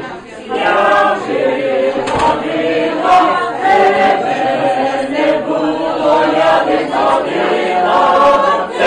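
A group of voices singing together unaccompanied, with long held notes; the singing drops out briefly just after the start and then carries on.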